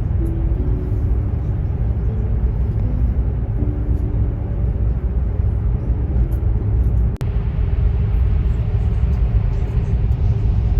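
Vehicle running, heard from inside: a loud, steady low rumble, with a single sharp click about seven seconds in.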